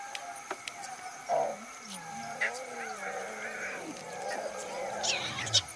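Male lion growling low and wavering as it feeds on a carcass, with a few short high chirps near the end.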